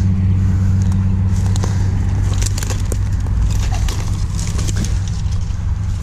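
Steady low drone of motor traffic, with light crackles and ticks scattered through the middle seconds.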